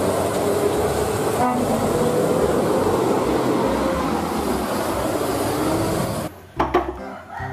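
Mercedes-Benz coach bus driving past on a wet road: engine running under steady tyre hiss, which cuts off suddenly near the end.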